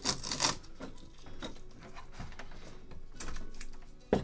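Painter's tape being peeled off its roll with a ripping crackle and smoothed down onto a plastic slot-car track piece, loudest in the first half second and again about three seconds in, with a sharp click near the end.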